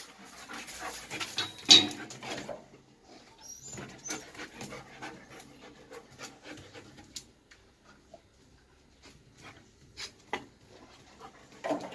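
A dog panting, with a sharp knock about two seconds in and scattered clicks and knocks afterwards.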